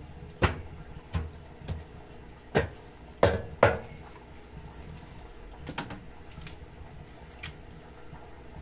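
Wooden beehive frames clunking against one another and against the rim of a metal barrel steam wax melter as they are lifted out: several sharp knocks in the first four seconds, then a few lighter taps, over a steady low background noise.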